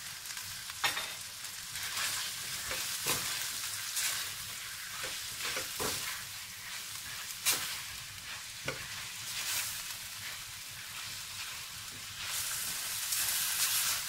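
Mutton liver, onion and green bell pepper sizzling in oil in a stainless steel wok while a silicone spatula stirs and scrapes through them, with a few sharp knocks of the spatula against the pan. The sizzle grows louder near the end.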